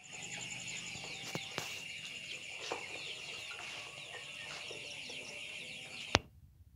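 A large flock of young chickens, about 60 days old, calling together: a dense chorus of many short downward chirps and clucks. A sharp click comes about six seconds in, and the sound drops away right after it.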